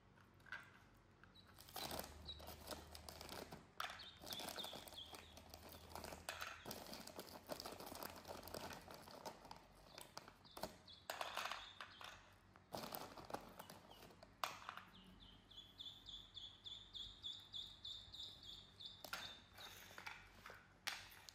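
Ducklings peeping in a quick series of high notes that rise slightly in pitch over a few seconds near the end, with faint clicks and rustles of crisp cookies being handled and taken from a plastic jar.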